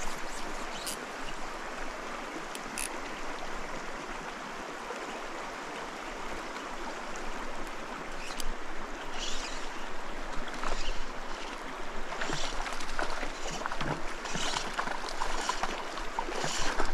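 Small mountain stream running over rocks, a steady rushing babble of water, with louder splashes coming and going from about halfway through.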